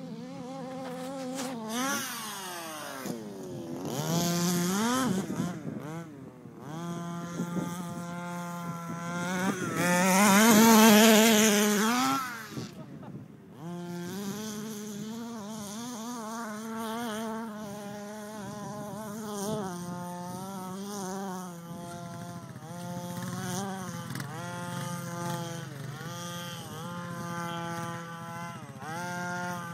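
Small two-stroke petrol engine of an HPI Baja 5B 1/5-scale RC buggy revving up and down again and again as it is driven around, with a high buzzing note. It is loudest about ten to twelve seconds in, and drops away briefly near six and thirteen seconds in.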